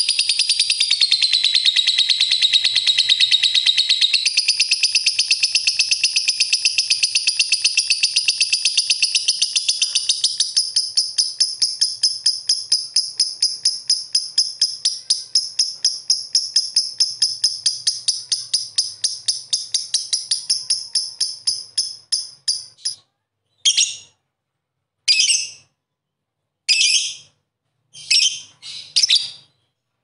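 Lovebird giving a long, unbroken, high-pitched rapid chattering trill, the 'ngekek' song prized by keepers. After about twenty seconds the trill breaks up into short separate bursts with gaps between them.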